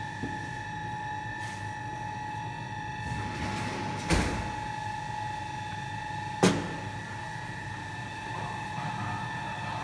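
Steady machine whine in a workshop, with two sharp knocks about four and six and a half seconds in.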